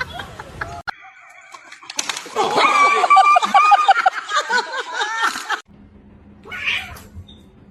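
A cat yowling: one long, wavering call lasting about three and a half seconds.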